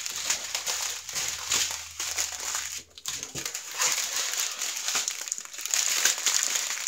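Clear plastic baggies of diamond painting drills crinkling continuously as a strip of them is handled and folded, with irregular crackles.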